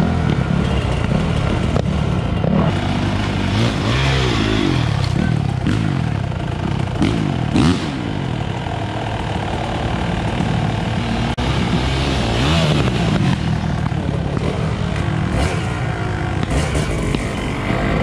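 Dirt bike engines running and revving, their pitch rising and falling several times.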